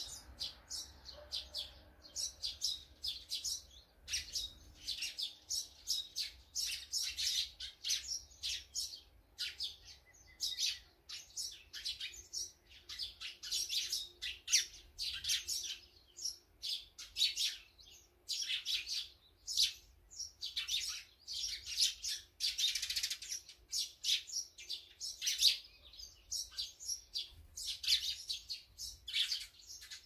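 Small wild birds chirping: many short, high calls in quick succession, often overlapping.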